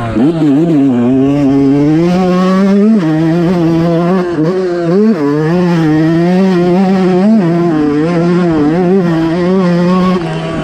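Fantic 125 motocross bike's engine revving hard while riding, heard close from on board. Its pitch climbs and falls repeatedly, with sharp drops about three and five seconds in.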